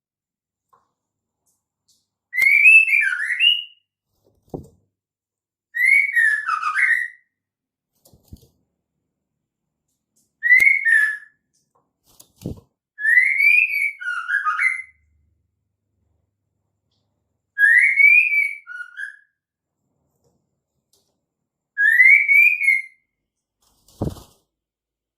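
Female white-rumped shama calling: six short whistled phrases a few seconds apart, each rising and then dropping in pitch. This is the typical female call used to rouse a male shama into singing.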